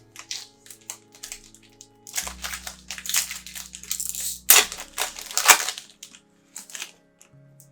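Plastic trading-card pack wrapper crinkling and crackling as it is handled and opened, in a run of irregular sharp rustles, loudest from about two to six seconds in.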